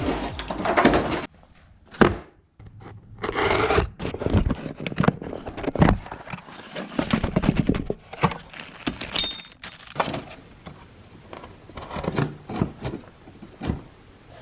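Irregular handling noises of hands working on a part: scraping, knocks and crinkling, with a short hiss about three seconds in.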